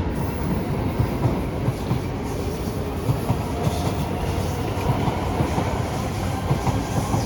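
SMRT C151 MRT train running out of the station, a steady rumble with frequent clicks from the wheels passing over the rail joints.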